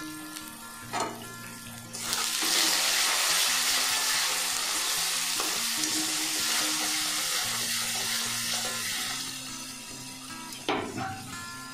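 Onion paste and ground spices (turmeric, dried chilli powder) sizzling in hot oil in a wok as they are stirred. The sizzle turns loud about two seconds in and eases near the end, with a sharp knock about a second in and another near the end.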